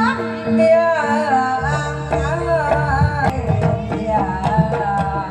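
Javanese gamelan music for a barongan performance: a melodic line that bends in pitch over a steady held tone, with kendang hand-drum strokes. A fuller, lower drum part comes in about a second and a half in.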